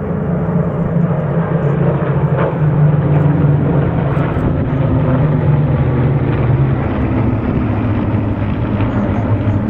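A formation of eleven Spitfires flying past overhead, their Rolls-Royce Merlin and Griffon V12 piston engines blending into one loud, steady drone. The pitch drops about three quarters of the way through as the formation passes.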